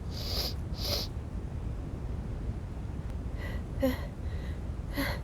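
Woman with a wet head cold sniffling and catching her breath between sneezes: two short sniffs in the first second, then a few faint gasping breaths near the end.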